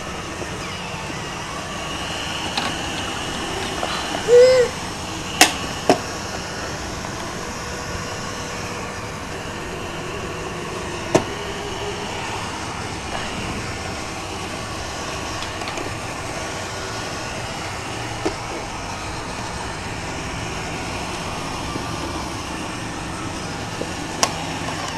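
Roomba robot vacuum running with a steady whir, with a handful of sharp knocks as it is bumped and grabbed, the loudest two close together about five and six seconds in. A short squeak comes just before them.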